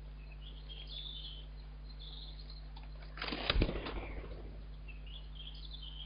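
Blackbird flying off its nest about three seconds in: a burst of wingbeats and rustling nest material with a low thump. Faint high bird chirps sound in the background, over a steady low hum.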